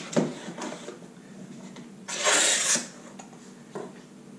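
Cardboard shipping box handled and set down on a glass tabletop: a few light knocks, then a short scraping rub of cardboard about halfway through.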